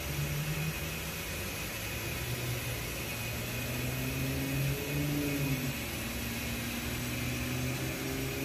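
A steady engine hum with a low drone that shifts in pitch about halfway through.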